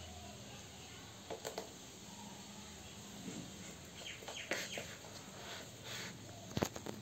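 Kitten playing with a sneaker: scattered light clicks and scrapes as it claws and bites at the shoe and its laces, in a short burst about a second and a half in, a busier cluster around four to five seconds, and the sharpest clicks near the end.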